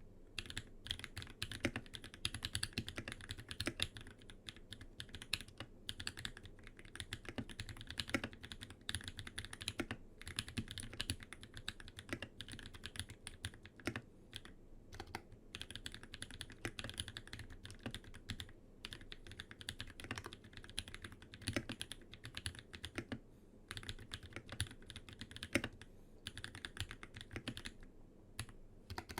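Continuous typing on a TX keyboard EO87 custom mechanical keyboard with brass weight and reinforcement, old Holy Panda tactile switches lubed with Krytox 105, and GMK ABS keycaps. It is a rapid stream of keystroke clacks with a few short pauses.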